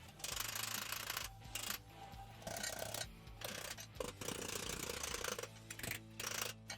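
Repeated short bursts of a power tool working sheet metal, each lasting about a second with short pauses between, over background music.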